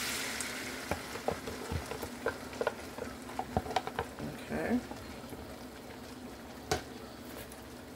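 Beaten eggs sizzling in hot oil in a hammered wok as they are poured in, the hiss fading over the first second or so. Light taps and scrapes of a silicone spatula on the plastic container and the wok follow, with one sharper knock near the end.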